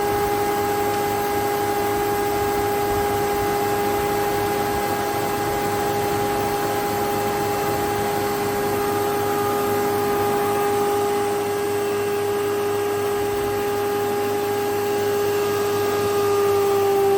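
STU 630 planer-thicknesser with its 7.5 kW motor and 64 cm four-knife cutterhead running free, with no board being fed, making a steady whine. Near the end the pitch dips slightly as the sound gets a little louder.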